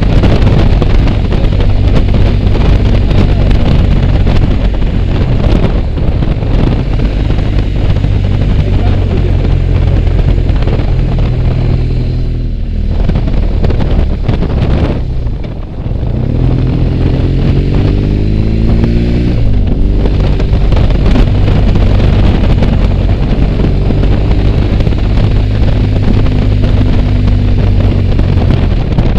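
BMW R1200GS boxer-twin engine running under way, with heavy wind rush on the microphone. The engine note dips briefly about halfway through, then its pitch rises as the bike accelerates.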